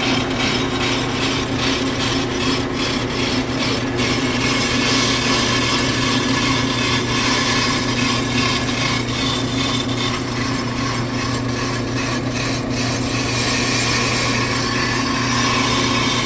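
Ammco brake lathe running with a steady motor hum while its cutting bits shave the friction faces of a spinning brake rotor, giving a dry scraping hiss of metal being cut. A light, regular ticking is heard during the first few seconds.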